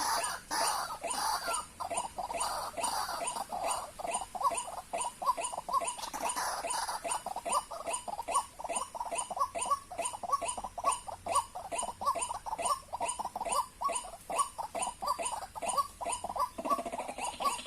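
White-breasted waterhen (ruak-ruak) calling: rapid, repeated croaking notes, jumbled at first and settling into a steady rhythm of about three a second after some seven seconds.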